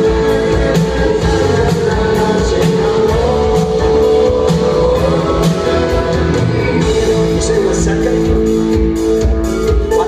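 Rock band playing live: electric guitars, drum kit with steady cymbal and drum hits, and a male singer over them.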